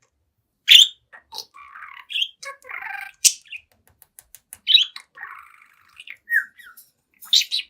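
A young budgerigar chattering at its mirror: a run of short chirps and buzzy warbled phrases broken by a few sharp, loud squawks, the loudest about a second in and again near the end.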